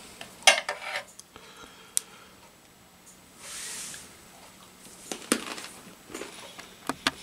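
Crunching on a hard cracker with chocolate spread, with a table knife set down on a stainless steel mess tray: a few sharp clicks and knocks, the loudest about half a second in.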